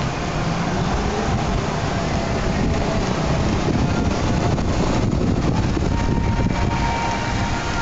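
Wind buffeting the phone's microphone, a steady loud rushing rumble.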